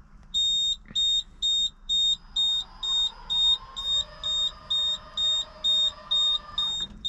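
An electronic warning beeper sounds in a fast, even series of high beeps, about two a second, starting just after the start. Underneath, a fainter whine rises about two seconds in and holds until just before the end.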